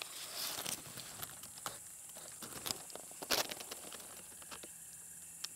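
Hands rustling and crackling through dry grass stems and fallen leaves while picking up a small insect. The rustling comes in small irregular clicks, with one louder crackle about three seconds in, then dies down.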